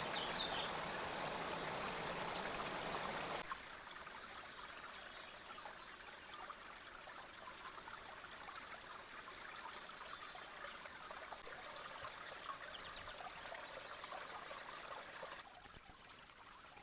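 Creek water running and trickling. About three and a half seconds in it cuts to a quieter stream, over which a string of short, very high chirps sounds.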